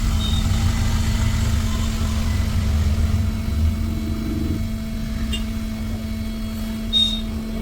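Hot-air rework blower running steadily, a low fan rumble with a constant hum, heating the solder to seat a new phone charging port.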